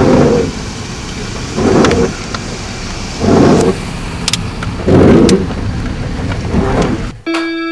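Rain and low car noise heard from inside a car, with a whooshing swell about every second and a half and a few light clicks. Music cuts in abruptly near the end.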